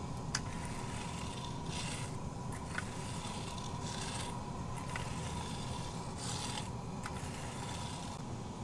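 Repeated short scraping strokes of a hand tool working loose asphalt, about one every two seconds, with a few sharp clicks between them, over a steady low machine hum.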